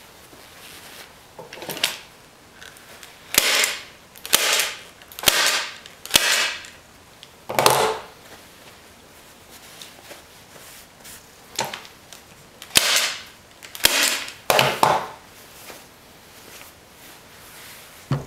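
Gloved hands tugging and stretching upholstery fabric over a foam seat cushion: a string of short rasping rustles, several starting with a sharp snap. A single knock comes near the end.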